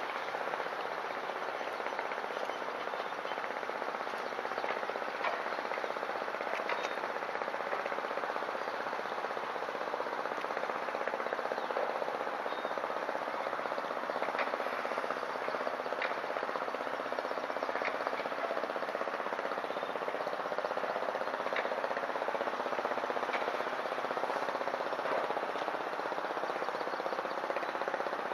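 A boat's engine running, a steady, rapid rattle that grows slightly louder after the first few seconds.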